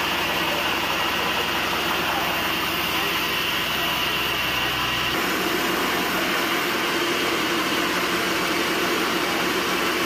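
Large log band sawmill running with a steady machine noise; about five seconds in the tone shifts, the low hum dropping away and a higher note coming forward.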